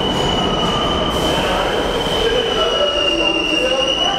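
R46 subway train pulling into the station, a steady high-pitched metallic squeal over the rumble of the cars on the rails.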